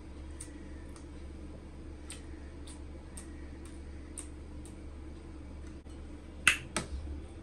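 Close-up chewing and eating: soft mouth clicks and lip smacks about every half second, then two sharp clinks of a metal fork against the plate near the end, the loudest sounds.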